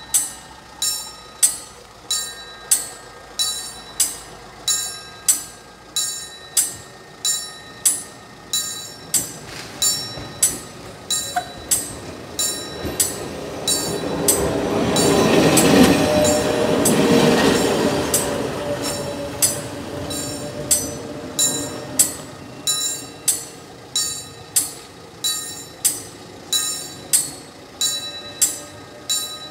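Level-crossing warning bell ringing steadily, a little more than once a second, while a narrow-gauge electric train passes over the crossing in the middle, its running noise swelling and fading over several seconds.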